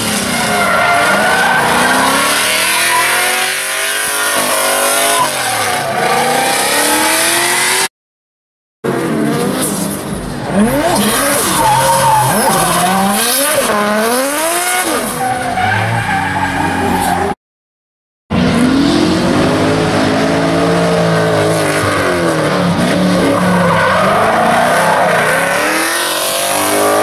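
Drift cars sliding sideways with tyres screeching, their engines revving up and down under changing throttle. The sound drops out twice for about a second between clips.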